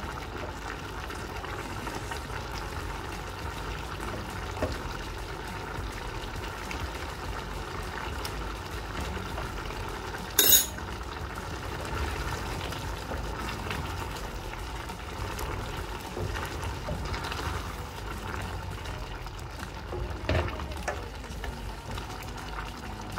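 Beef stew simmering in a pan while a spoon stirs through it to break down a stock cube. A single sharp knock of the spoon against the pan comes about ten seconds in, with a few lighter knocks near the end.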